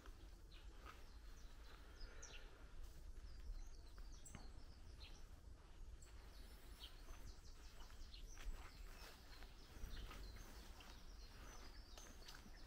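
Faint, scattered bird chirps over a low steady rumble, with a few soft clicks.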